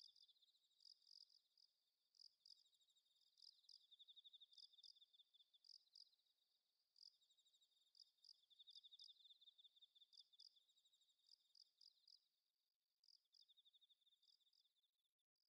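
Faint chorus of night insects, crickets chirping: a pulsing trill alongside short, repeated high chirps, stopping abruptly near the end.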